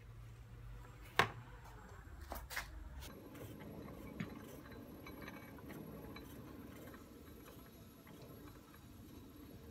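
Workshop handling sounds: a sharp knock about a second in and two lighter knocks a second later, then faint rustling with small scattered ticks.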